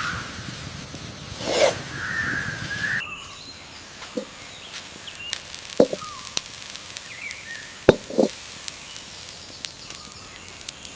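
Cooking and handling sounds: a hiss for the first three seconds, then scattered clicks and a few short knocks.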